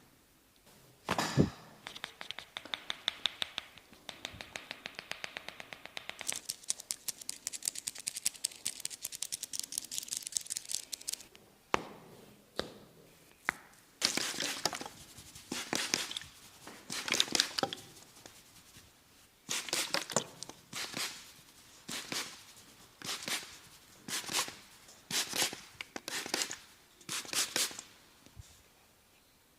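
Massage sounds from a barber's hands: a fast, even run of tapping clicks, then a string of short crackling, rubbing strokes about one a second.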